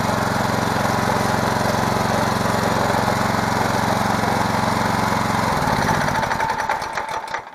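Predator 212cc single-cylinder four-stroke engine on a mini bike running steadily and smoothly, fresh oil just put in, then switched off about five and a half seconds in, its firing slowing and dying away until it stops near the end.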